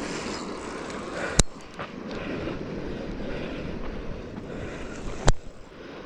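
Wind rushing over the microphone, with two sharp clicks about four seconds apart.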